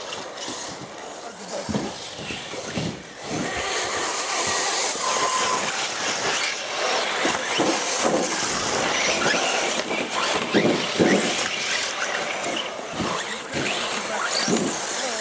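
Radio-controlled off-road race cars running round the track, their motors rising and falling in pitch; the sound grows louder about four seconds in.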